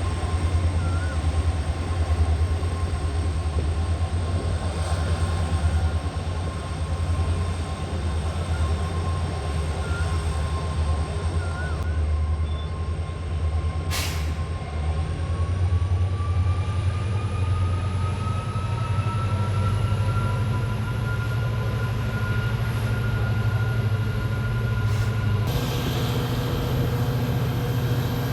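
WDP4D diesel locomotive's EMD two-stroke V16 engine running with a deep, steady hum. About halfway a whine starts and rises in pitch, and near the end the engine note steps up.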